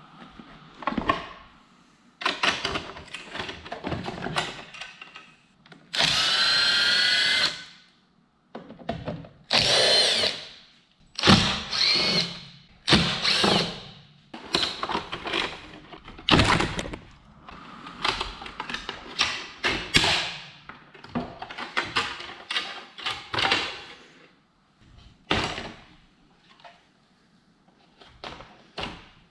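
Handheld power driver whirring in repeated short runs as it backs the screws out of a motorcycle's fairing and tail-section panels, the longest run about six to seven and a half seconds in. Between runs come knocks and rattles of plastic bodywork panels being handled.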